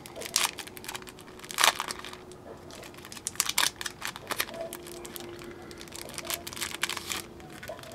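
Clear plastic wrapper crinkling as a stack of game cards is handled and slid out of it: irregular crackles that stop shortly before the end.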